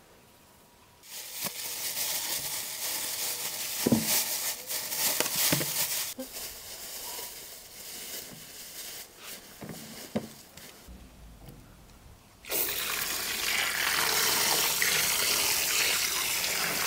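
Water running from a tap in two spells: it starts about a second in, eases off, then runs strongly again from about two-thirds of the way through. There are a few knocks of things handled under the stream.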